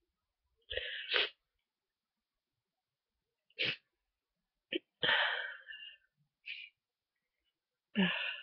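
A person congested with a head cold sneezing and sniffling: several short, separate bursts with quiet gaps between them, the longest a full sneeze about five seconds in and another loud one near the end.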